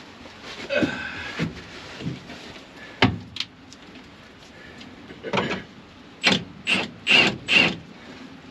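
Hand-tool work on the combine's belt tensioners: a sharp metallic knock, then four rasping strokes about half a second apart near the end.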